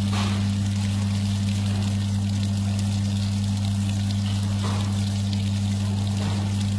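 DPF cleaning machine's pump humming steadily while sooty rinse water pours and splashes out of a diesel particulate filter into the machine's tank, the dark water showing soot being flushed from the filter.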